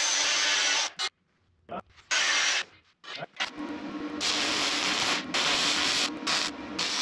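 Electric arc welding on steel forks: two short bursts of crackling, then a steady, continuous crackling weld from about three seconds in.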